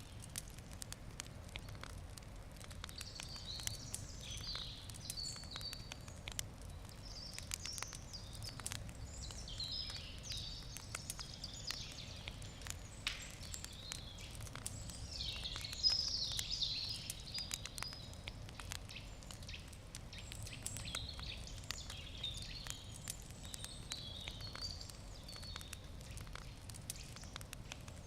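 Wood campfire crackling with frequent small pops and snaps, while birds sing short chirping phrases every few seconds, the loudest about sixteen seconds in.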